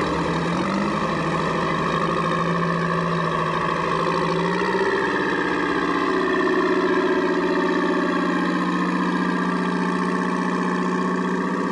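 Vintage farm tractor engines running at low revs as tractors drive slowly past one after another, a steady pitched hum whose pitch shifts about halfway through as a new tractor comes by.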